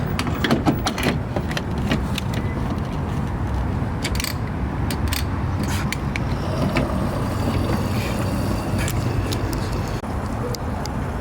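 A car engine running with a steady low rumble, with scattered clicks and knocks over it.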